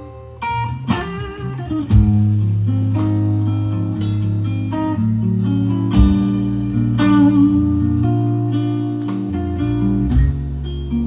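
Live blues band playing a slow blues, with lead guitar notes, some of them bent, over bass and drums. Heavy beats fall about every four seconds.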